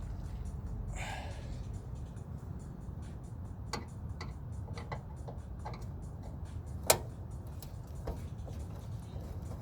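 Scattered sharp clicks and taps of hand tools working on a microwave's metal housing, with a brief scrape about a second in and the loudest click about seven seconds in, over faint background music and a steady low hum.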